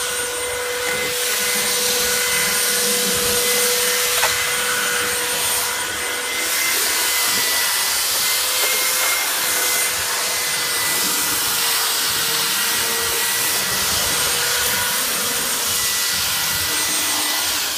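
Electric belt sander running steadily on timber boards: a constant motor whine under the rasping hiss of the sanding belt on wood. It winds down at the very end.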